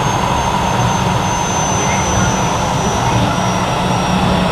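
Keio 7000 series electric commuter train running on the line, heard from inside the car: a steady rumble of wheels on rail and running gear, with a faint high whine slowly falling in pitch.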